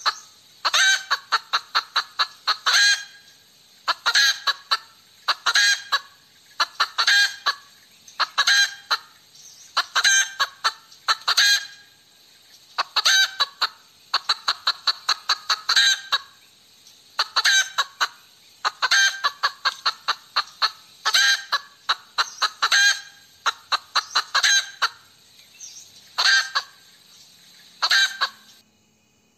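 Hen cackling: repeated bursts of quick, sharp clucks, a burst every one to two seconds, stopping shortly before the end. This kind of cackle is what hens typically give after laying an egg.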